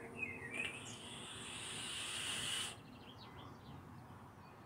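Long hissing draw through an IJOY RDTA 5 rebuildable atomizer fired at 80 W with every airflow hole open, growing louder for about two and a half seconds and stopping abruptly when the draw ends.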